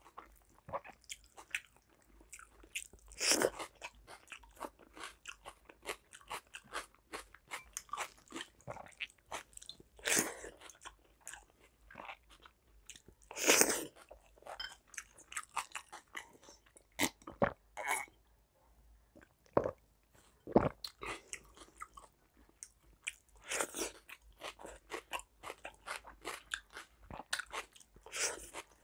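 Close-miked mouth sounds of a person eating panta bhat (fermented rice soaked in water) with fried sides and raw onion by hand: steady wet chewing with frequent crunches. There are a few louder, longer bursts several seconds apart.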